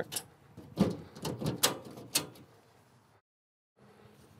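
Front door of an Energizer EnergiStack gateway enclosure being fitted and pressed into place: about five knocks and clicks over the first two seconds, followed by a moment of complete silence.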